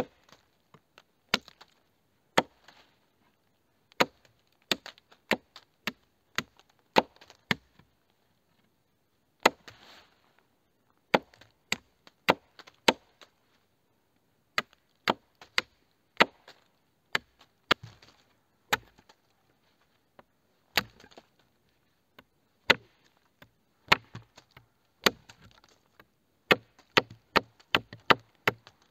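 A blade chopping into wood: short, sharp strikes at an irregular pace, sometimes two or three in quick succession with brief pauses between.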